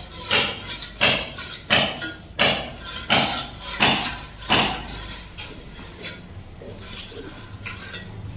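Mason's trowel scraping through wet cement slurry on a sand-cement mortar bed, spreading the slurry before tiles are laid. Short strokes come in a steady rhythm, about one every 0.7 s, then turn fainter and more scattered about halfway through.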